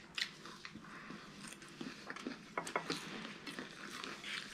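Crunching and chewing of raw salad vegetables, lettuce and cucumber: a string of small, irregular crunches.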